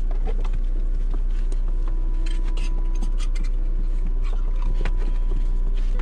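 Steady low rumble inside a car, with scattered light clicks and taps as a puppy moves about on the seat and a tin can and plastic water bowl are handled.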